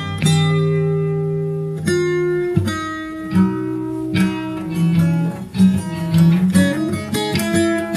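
Instrumental music led by plucked guitar, with held low notes under picked notes and chords; the picking grows busier about halfway through.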